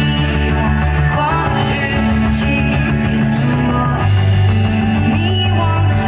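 Live pop-rock song played through a concert PA: a singer's voice carrying a slow, wavering melody over a band with guitar and a heavy sustained bass.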